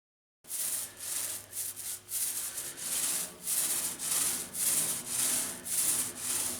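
Hand sanding in back-and-forth strokes, about two a second, starting abruptly about half a second in.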